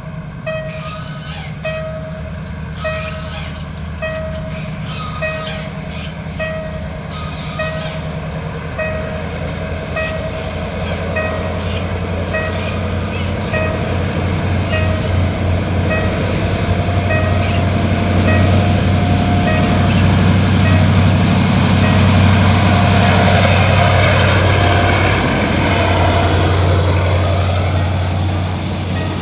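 Level-crossing warning bell sounding in a steady repeating beat, about one and a half strikes a second, while a diesel-hauled passenger train approaches and passes, its engine and wheel noise growing louder to a peak a little over twenty seconds in and drowning the bell.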